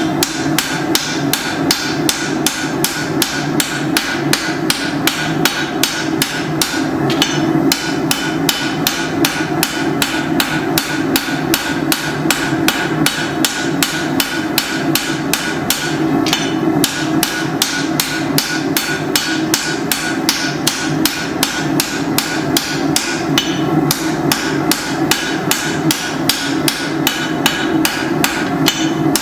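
Rounding hammer striking hot steel on an anvil in a fast, even rhythm of blows, smoothing and drawing out the tip of a forged machete blade.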